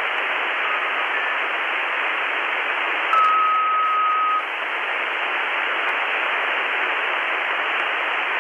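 Radtel RT-860 handheld radio receiving 27.555 MHz upper sideband on the 11-metre CB band: steady hiss from its speaker with no station coming through. About three seconds in, a steady tone cuts through the hiss for just over a second, louder than the hiss.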